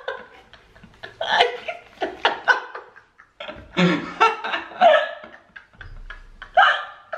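Laughter in repeated bursts, with a brief lull about three seconds in.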